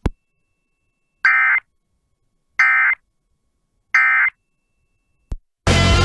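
Three short bursts of weather-radio digital data tones, each under half a second and about 1.4 seconds apart, a harsh two-tone warble: the end-of-message code that closes a warning broadcast. A click follows shortly after, and a louder, dense sound starts near the end.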